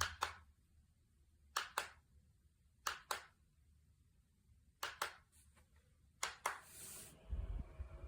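Five sharp double clicks, about one pair every second and a half, from a plastic camping fan being handled, like a button pressed and released. A brief rustle follows near the end, then a low hum comes in.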